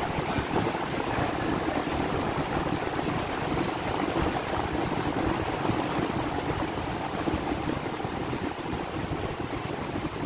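Steady rush of fan-driven air blowing through the wind-test rig, easing slightly near the end as the air speed drops.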